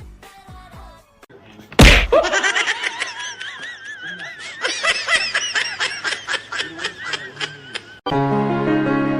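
A sudden loud hit about two seconds in, then several seconds of rapid laughter with a wobbling pitch. It cuts off sharply near the end into background music of steady keyboard chords.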